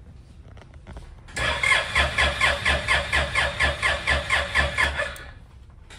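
Honda Silver Wing scooter's electric starter cranking the engine in a steady rhythm of about five pulses a second for about four seconds, then cutting off without the engine catching: the scooter won't start.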